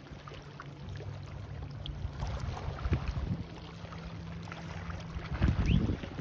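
Distant motorized watercraft engine droning steadily across the water, with wind buffeting the microphone in a louder gust near the end.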